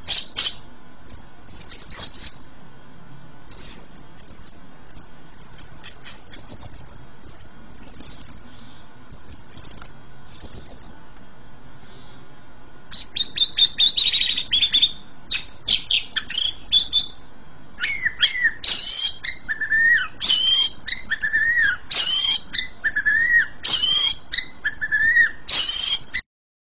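Caged greater green leafbird (cucak ijo) singing hard: short high chirps at first, a rapid run of notes about halfway through, then a repeated two-part phrase, a high note dropping to a lower whistle, about every second and a half. The song cuts off just before the end.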